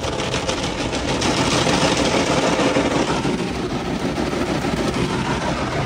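Automatic car wash brushes spinning and slapping against the car, heard from inside the cabin: a loud, steady rush made of many rapid hits.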